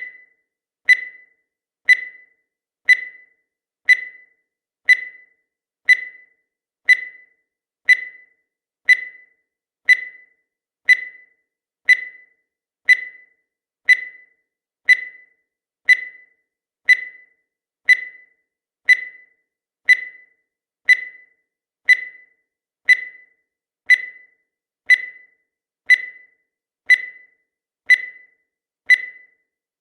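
Countdown timer sound effect: a short, high electronic beep once every second, each one dying away quickly.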